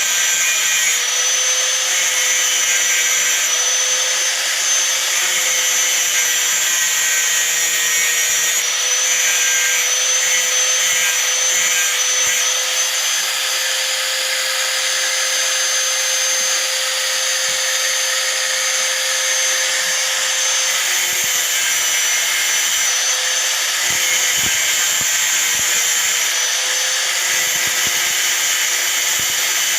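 Hand angle grinder running steadily under load, its disc grinding a steel nail, with a constant motor whine over the hiss of the abrasion.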